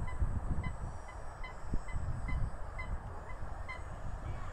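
A waterbird calling over and over in short honks, about two to three a second, over wind rumbling on the microphone.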